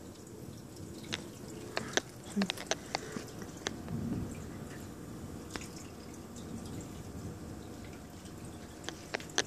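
Rainwater dripping in heavy rain: irregular single sharp drops, several close together about two to three seconds in and a couple more near the end, over a steady low background hiss.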